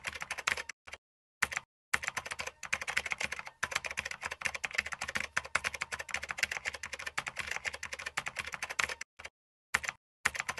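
Rapid computer-keyboard typing, a fast run of key clicks broken by a few short pauses.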